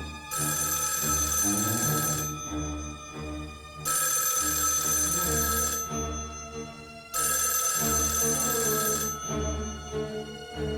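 Bell telephone ringing three times, each ring about two seconds long with short pauses between, over tense background music.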